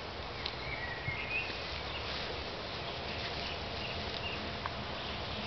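Outdoor ambience: a steady hiss with a few faint, short high chirps in the first half and a couple of small clicks.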